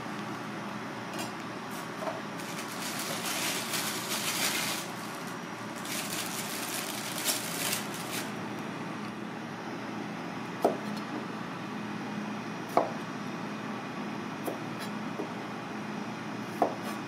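Kitchen knife chopping on a cutting board: a handful of single sharp knocks about two seconds apart in the second half. Two stretches of hissing noise come before them, over a steady background hum.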